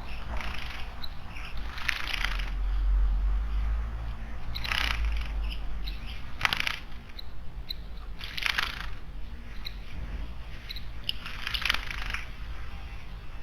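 Small songbirds at a garden stone water basin giving short, high chip calls again and again. Between the calls come about half a dozen brief, louder hissing bursts, one every two seconds or so.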